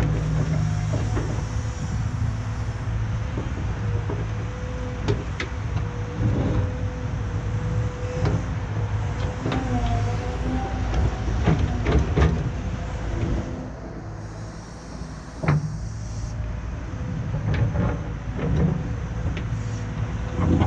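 Heavy diesel earthmoving machine running under work, with a steady low engine drone and a thin steady whine, and sharp metal clanks and knocks every second or two. It eases off briefly about two-thirds of the way through.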